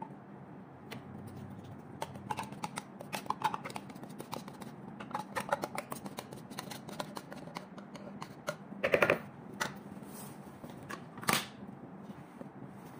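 Containers being handled over a plastic mixing bowl: a run of light clicks and taps, with a louder knock about nine seconds in and another about eleven seconds in.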